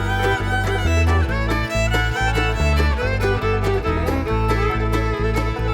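Background music: an upbeat bluegrass-style string tune led by fiddle over a steady bass and beat.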